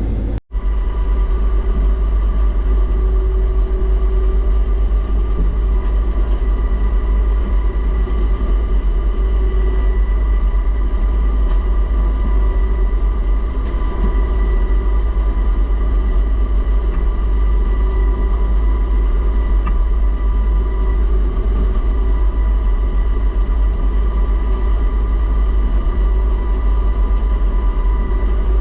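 Case IH combine harvester running steadily while picking soybeans, heard from inside the cab: a deep, even rumble with a steady whine above it. The sound drops out for an instant about half a second in, then carries on unchanged.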